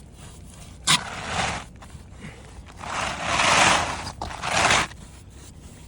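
Asphalt roof shingles scraping and rubbing against each other as they are worked loose by hand, in three rough bursts, the longest and loudest about halfway through, with a sharp click about a second in.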